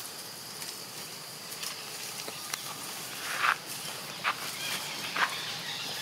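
Steady high hiss of forest insects, with three short sharp sounds about a second apart in the second half, the first the loudest.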